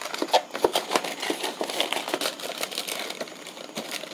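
Snack packaging being handled: a cardboard brownie box and a plastic-wrapped brownie crinkling, with irregular small clicks and taps.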